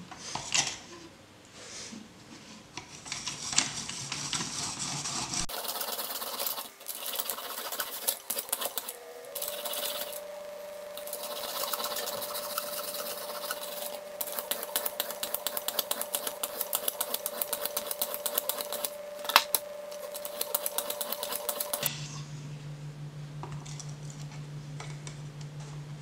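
Coarse sharpening stone on a rod-guided knife sharpener scraping back and forth along a pocket knife's steel edge, grinding a new 20-degree bevel. The strokes are scattered at first, then run on as rapid, dense, gritty rasping, and die away near the end.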